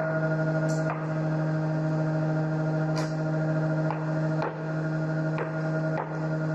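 A steady drone of several held tones, low and higher together, broken by sharp clicks or knocks at uneven intervals, about six in all.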